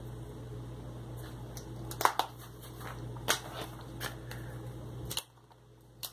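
Paperback coloring books and loose coloring pages handled and set down on a tabletop: a few sharp taps and knocks scattered through, with light paper rustling.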